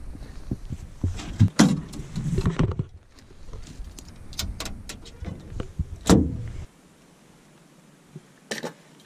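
Knocks, clunks and rattles of fishing gear being handled in an aluminium boat, with several sharp knocks in the first three seconds and another loud one about six seconds in. A low rumble underneath cuts off suddenly soon after.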